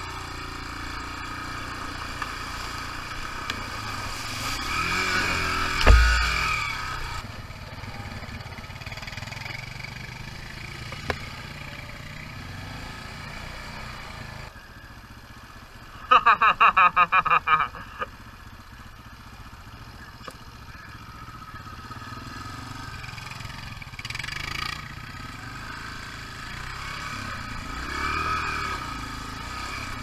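Dirt bike engine running, its pitch rising and falling with the throttle. A heavy low thump comes about six seconds in, and a loud two-second burst of rapid pulsing about sixteen seconds in.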